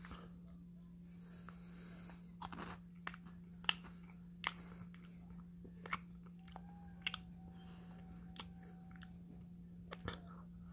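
Faint chewing and crunching of dry Peach Mango Cheerios in the mouth, as a series of short, irregular crunches over a low steady hum.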